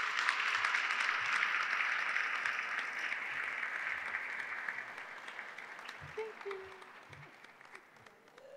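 Audience applauding, the clapping starting strong and dying away gradually over several seconds.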